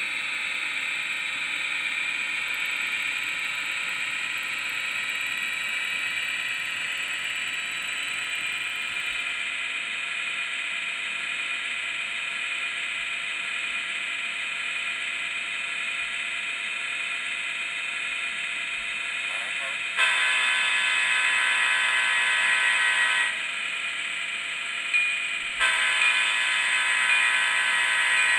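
Sound decoder in an HO-scale Athearn Ready To Roll diesel locomotive playing diesel engine running sounds through its small speaker, with two long horn blasts, one about 20 seconds in and one near the end.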